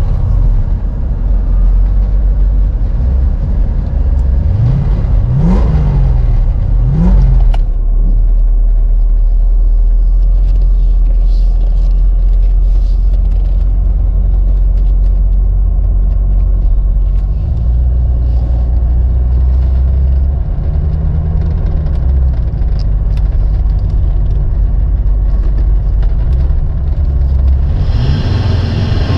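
1991 Chevrolet Corvette C4's 5.7 L V8 accelerating, its note climbing steeply several times in the first few seconds. It then settles into a steady low drone while cruising.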